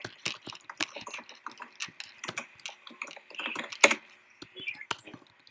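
Typing on a computer keyboard: a quick, irregular run of key clicks as a chat message is written.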